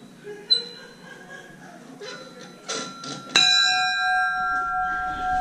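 Brass locomotive bell in its cast-iron yoke, swung by hand so the clapper strikes once about three seconds in, and the bell rings on with a long, slowly fading tone. A light ping comes just before, near the start.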